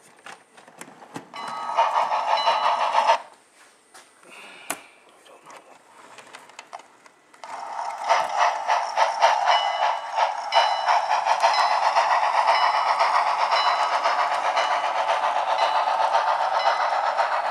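Model train running along the layout track: a brief clatter about two seconds in, a lull, then a steady run of clattering with rapid ticks from about seven seconds on.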